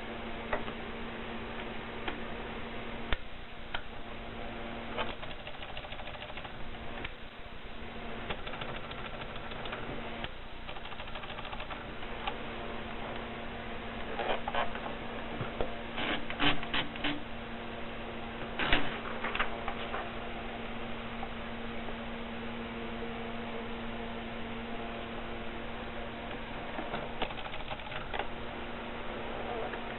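Triumph Favorit Contessa typewriter: scattered key strikes and mechanical clicks, with a quick run of four strokes a little past the middle, over a steady low hum.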